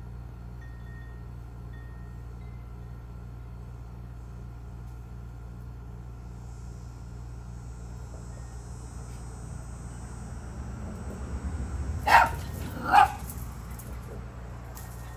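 A small Maltese dog barking twice, about a second apart, near the end, at a squirrel on the fence above it. Wind chimes tinkle faintly in the background.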